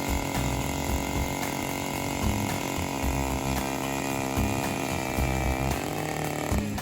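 Gas-powered ice auger engine running as it drills through the ice, its pitch wavering up and down in the second half.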